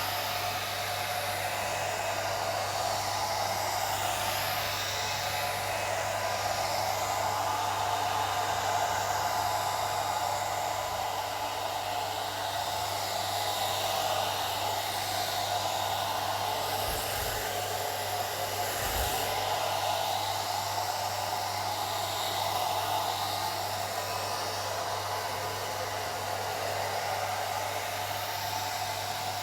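Old hair dryer running steadily: a continuous rush of blown air over a low, steady motor hum.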